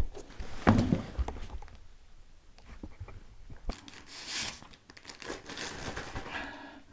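Paper rustling and crinkling in short spells, with a few light taps and clicks, as a yellow paper talisman is handled: once about four seconds in and again near the end.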